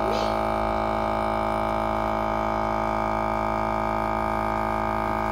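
Ambiano vacuum sealer's pump running with a steady, even hum while it draws the air out of a bag of food and seals it.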